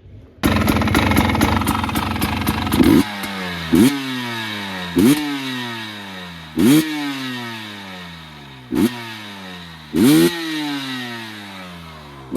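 2022 KTM 300 XCW two-stroke single-cylinder engine breathing through an FMF TurbineCore 2.1 silencer with spark arrestor, held at high revs for a couple of seconds, then blipped sharply about five times, the revs falling away after each blip.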